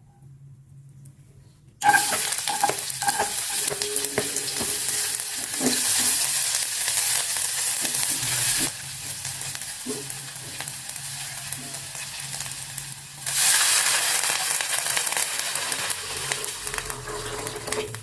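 Food sizzling in hot oil in a pan while being stirred, with scattered clicks of the utensil. The sizzle starts suddenly about two seconds in, eases off around the middle and gets louder again a few seconds later.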